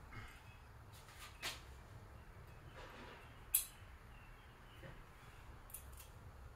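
Faint handling noise: a few light clicks and knocks, with one sharp click about three and a half seconds in.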